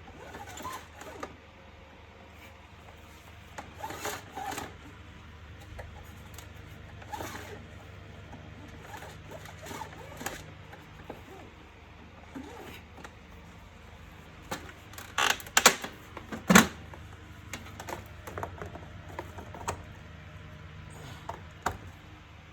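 Plastic housing parts of a wet & dry vacuum cleaner being handled and fitted together: scattered clicks and knocks, the loudest cluster about two-thirds of the way through, over a low steady hum.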